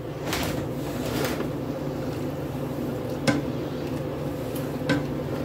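Macaroni being stirred in a pot of boiling water, the utensil clinking against the pot twice, about three and five seconds in, over a steady hum.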